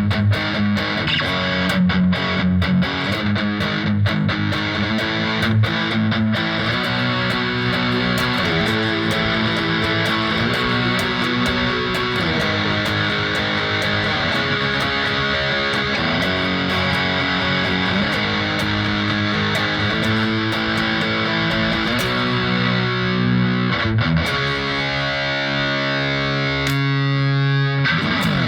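Les Paul-style set-neck mahogany electric guitar played through a Roland Cube Lite amp with heavy distortion, a riff of picked chords and sustained notes, with longer held chords near the end.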